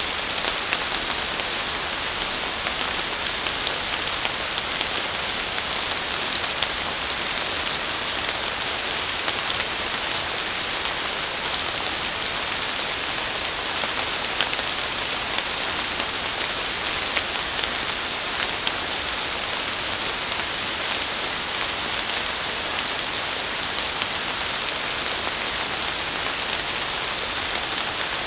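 Steady rain falling on leafy forest trees: an even hiss with the ticks of many individual drops.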